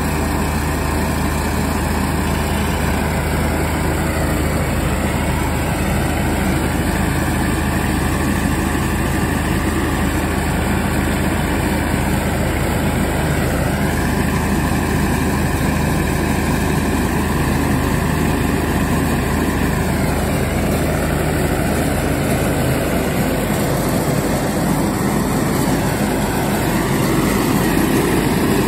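Allis-Chalmers 185 tractor engine running at a steady speed.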